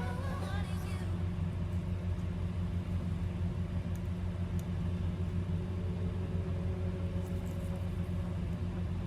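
A steady low mechanical hum with no change in pitch, and a couple of faint small ticks about four seconds in.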